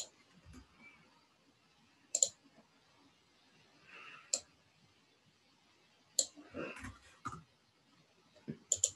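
Computer mouse and keyboard clicks while working in 3D software: a handful of sharp single clicks at irregular intervals, with two or three close together near the end.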